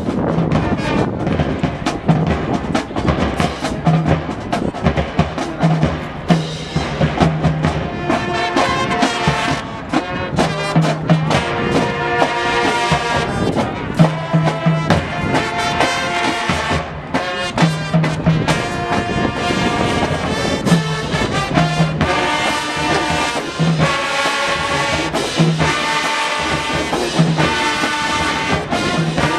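High school marching band playing a tune with brass (trumpets, trombones) and drums, with a low bass note repeating every second or two.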